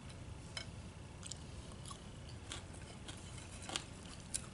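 Close-up eating sounds: scattered small crunches and clicks of food being chewed, with a few sharper clicks, over a low steady hum.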